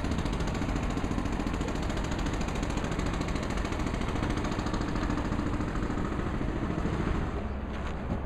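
A motor running steadily.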